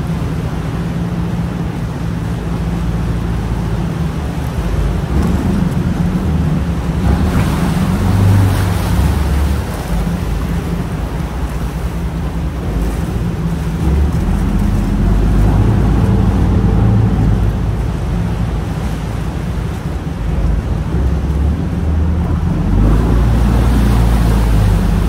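Cruise boat's engine running steadily, with sea water sloshing and splashing around the hull; a louder splash comes about seven seconds in.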